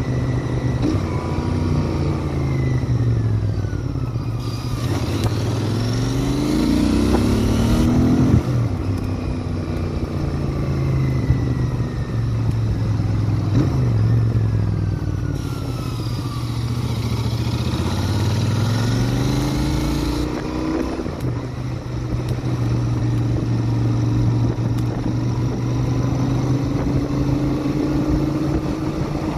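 Royal Enfield Interceptor 650's parallel-twin engine and exhaust running under way, the revs dropping and climbing back twice and holding steady between. Two spells of rushing noise come in while the revs dip and recover.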